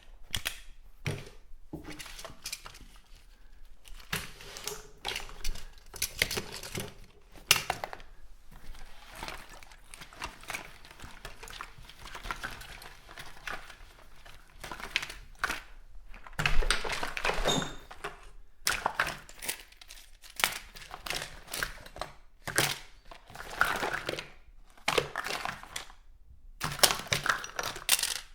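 Someone rummaging through a bathroom cupboard: irregular clatters and knocks of bottles and small items being moved, with rustling and crinkling of packaging in between.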